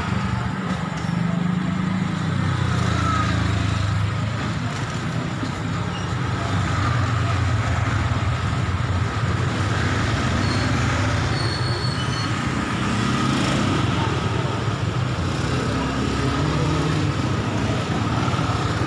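Steady street traffic noise: the engines of passing road vehicles running continuously as a low rumble.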